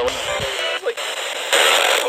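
A radio being tuned between FM stations: short snatches of station audio give way to a hiss of static, with a louder burst of static about a second and a half in.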